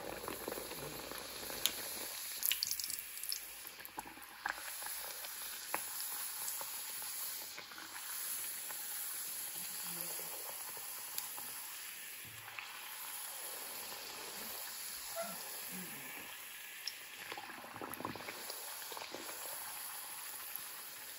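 Hot oil sizzling and bubbling steadily around a maida farsi puri as it deep-fries in a pan, with scattered small crackles.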